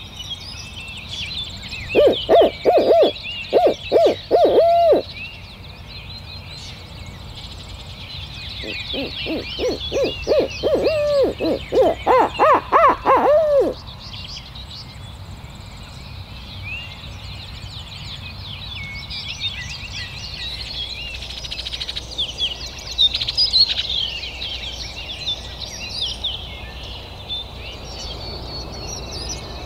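Owl hooting in the barred owl's pattern: a run of about eight loud, even hoots, then after a pause a longer run that climbs in pitch and falls away. Songbirds of the dawn chorus sing behind it throughout.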